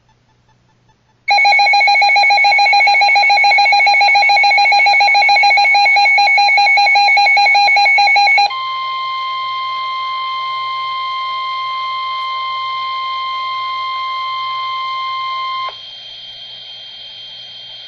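Emergency Alert System tones for a National Weather Service flash flood warning. About a second in, a loud, rapidly pulsing electronic warble starts and runs for about seven seconds. It gives way to a steady single-pitch attention tone for about seven seconds, which cuts off suddenly and leaves a fainter steady high tone.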